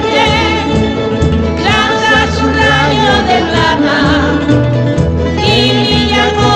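A Canarian folk group singing with plucked-string accompaniment: several voices sing with vibrato over steady bass notes from the strings.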